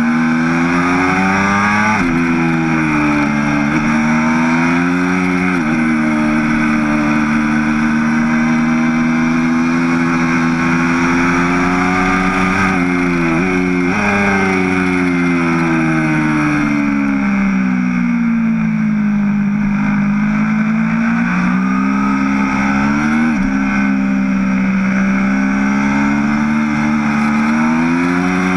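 Aprilia superbike engine at full race pace, pulling hard through the gears. Its pitch climbs, then drops sharply at each gear change, with a cluster of quick shifts about halfway, a long fall as the bike slows, and another climb. Wind rushes over the bike.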